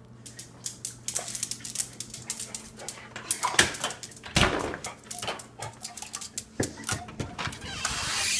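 Beagle vocalizing close to the microphone, amid a steady run of quick clicks and scuffs, with two louder dog sounds around the middle. A steady low hum runs underneath.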